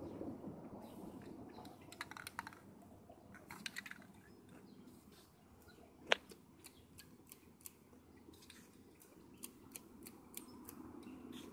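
Scattered light clicks and taps as plastic stencil lids are handled on the metal refrigerator top, with one sharp click about six seconds in.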